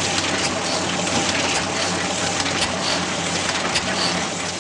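Printing press running: a steady mechanical clatter with a low hum and repeated sharp clicks from its moving parts.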